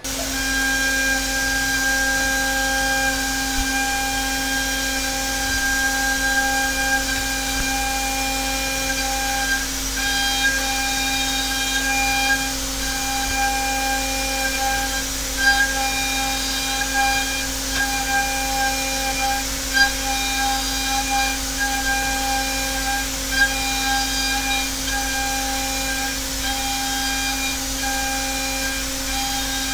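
Hermle five-axis CNC mill roughing aluminium: a steady milling tone made of several constant pitches over a hiss. A few short louder peaks come in the middle and later part.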